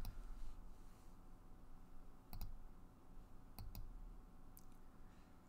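A few faint computer mouse clicks, spaced a second or so apart, some as quick press-and-release pairs, over low room tone.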